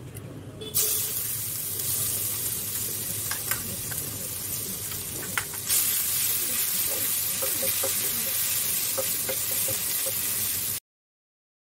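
Crushed garlic frying in hot oil in a pan: a steady sizzle that starts about a second in and grows brighter a little past halfway. A wooden spatula scrapes and stirs against the pan throughout, and the sound cuts off abruptly near the end.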